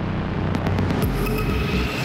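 Loud electronic noise music from a live audiovisual performance: a dense wash of static-like noise over a deep droning hum, with a steady high tone entering about halfway through.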